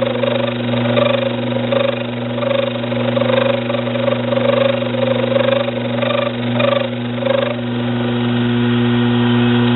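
Metal lathe running at low speed with a steady motor hum, while the cutting tool faces a steel nut dry with no oil, giving a wavering scraping tone that stops about seven and a half seconds in.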